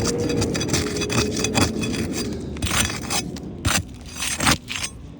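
A metal shingle bar scraping and prying under sealed asphalt roof shingles, with a dense run of sharp clicks and crackles. The brittle, worn-out shingles are tearing rather than coming unsealed.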